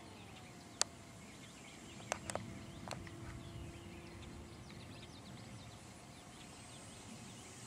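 Faint thin whine of a distant Parkzone T-28's electric motor, dropping a little in pitch at the start, over quiet outdoor ambience with scattered faint chirps. A few sharp clicks: one about a second in and three around two to three seconds in.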